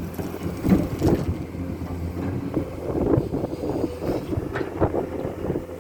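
Komatsu excavator's diesel engine running steadily while working, with irregular knocks and clanks over the engine hum.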